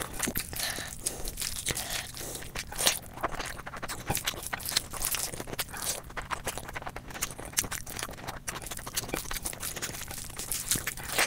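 ASMR eating sounds: chewing and biting food, a dense, irregular run of wet clicks and crunches.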